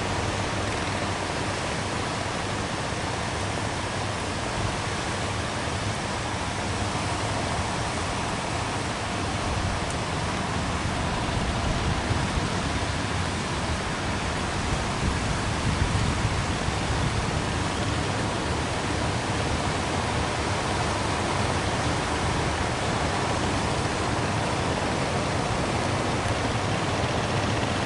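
Ocean surf breaking on the beach as a steady rush, a little louder in the middle stretch.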